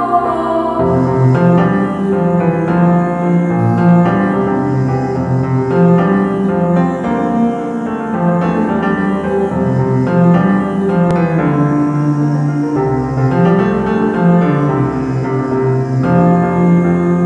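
Church choir anthem music with piano, its low bass line moving prominently under the harmony.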